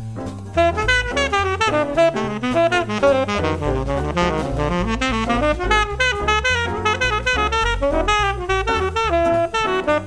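Tenor saxophone improvising a jazz solo in fast runs of notes over a medium-swing backing of bass and drums. The horn pauses briefly at the very start, then plays continuously.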